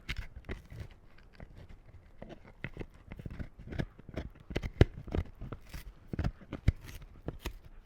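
A dog gnawing and crunching on a long-lasting chew treat: irregular sharp crunches and clicks, a few per second, the loudest about five seconds in.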